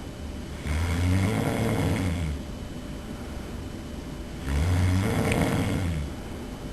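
A sleeping person snoring loudly: two long snores, each lasting nearly two seconds, about four seconds apart, in a steady breathing rhythm.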